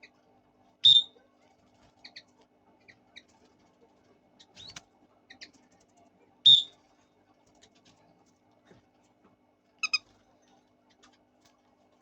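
Fischer's lovebirds calling: two loud, shrill single chirps about a second in and past the middle, softer short chirps between them, and a quick stuttering call near the end.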